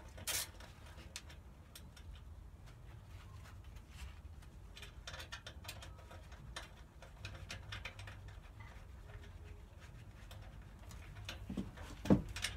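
Faint clicks and scrapes of metal parts and a hand tool as an exhaust baffle is put back into a motorcycle race can and its Allen bolt tightened, with a sharp knock near the end.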